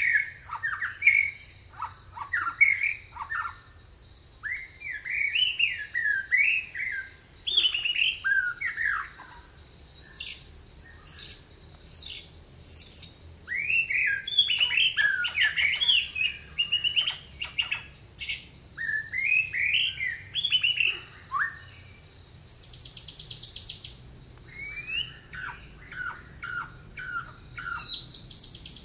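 Several songbirds singing at once: a run of short, varied, sliding phrases over a steady, rapid, high-pitched pulsing trill, with a brief buzzy high call a little past the middle.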